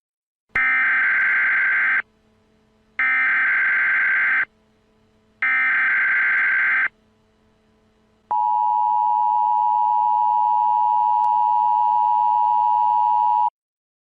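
Emergency Alert System SAME header: three bursts of digital data tones, each about a second and a half long with a short gap between them. They are followed by the steady two-tone EAS attention signal for about five seconds, which cuts off suddenly.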